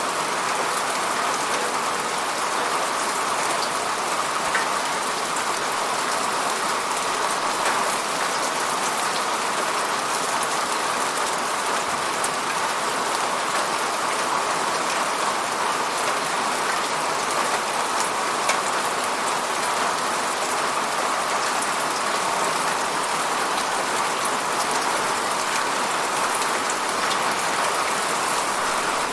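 Steady falling rain: an even, unbroken hiss of rain on a surface, with scattered individual drop ticks.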